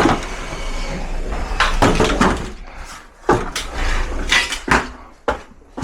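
Sheet-metal ductwork being handled and fitted into place: a series of metallic clanks, knocks and short rattles, about half a dozen, irregularly spaced.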